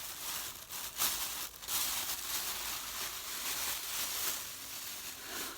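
Plastic packaging crinkling and rustling as it is handled, with a few sharper crackles a little over a second in.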